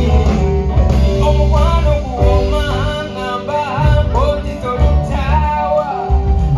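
Live band playing, with a male lead singer over electric bass guitar, keyboard and drum kit; the bass line is strong and steady.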